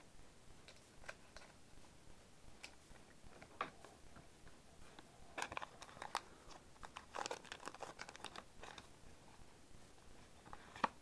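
Foil Pokémon booster pack wrapper crinkling and tearing open in the hands, with cards being handled. Faint, scattered crackles that come in bunches about five and seven seconds in.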